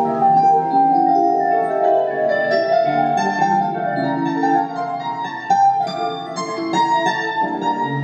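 Instrumental keyboard music: a dense, unbroken run of short, overlapping notes in the middle and upper range.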